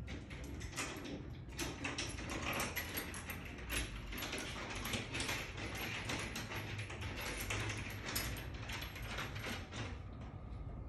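Rapid, irregular metallic clicking and ratcheting from the lift motor's fittings being hand-tightened onto a steel ceiling strut bracket. It stops near the end.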